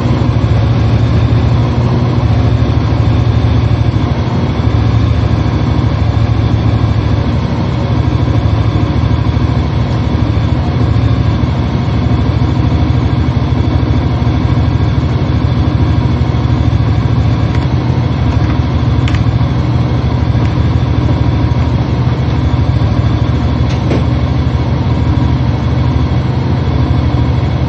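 Motorcycle engine running steadily, a low even hum with no change in pace.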